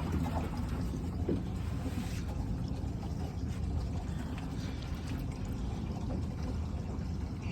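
Water sloshing and lapping against a small boat's hull over a steady low rumble, with a few faint knocks.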